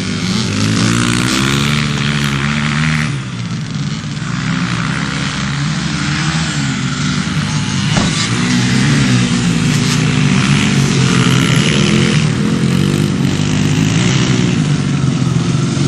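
Motocross dirt bike engine running and revving as the bike rides, its pitch repeatedly rising and falling.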